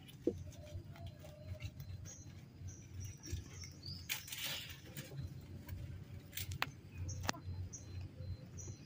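Goats and a baby macaque feeding on leafy green branches: scattered rustling of the leaves and a few sharp clicks, the loudest rustle about four seconds in. Several short high chirps come and go over a low steady hum.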